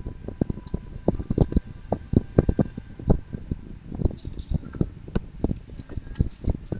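Irregular clicks and knocks close to the microphone, several a second, with no speech.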